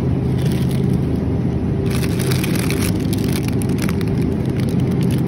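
Steady low hum of a refrigerated display case, with irregular crackly rustling from about two seconds in.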